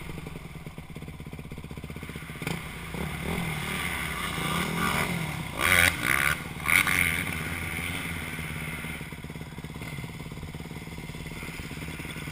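Dirt bike engines: one runs steadily throughout while a bike ridden along the trail rises and falls in revs, with a few short, louder throttle surges about halfway through.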